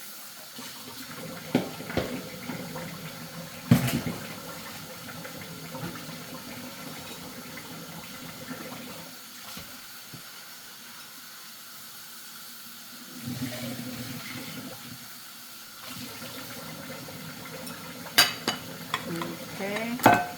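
Kitchen tap running into a sink while a head of cabbage is washed under it. A few sharp knocks from handling it in the sink, the loudest about four seconds in and several more near the end.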